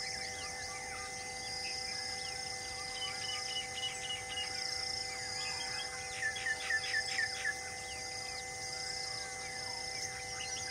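Birds and insects calling: many short chirps and whistles, a quick run of about six loud down-slurred notes about six seconds in, and an insect's high buzz repeating every second or so. Steady even tones hum underneath.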